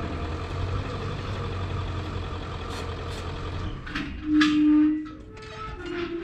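A vehicle engine idles steadily, then stops a little under four seconds in. About half a second later comes a short, loud, held tone lasting under a second, followed by a few scattered sounds.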